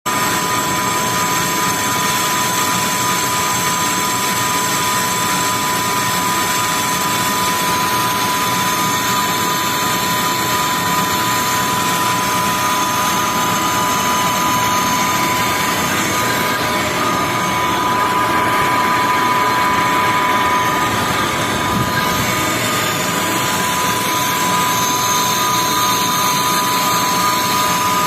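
Metal lathe running while a trepanning tool cuts a ring-shaped groove into the workpiece: a steady mechanical noise with a constant high whine.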